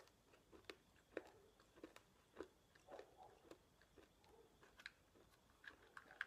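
Near silence broken by faint, scattered mouth clicks of someone chewing a small sugar-free fruit candy.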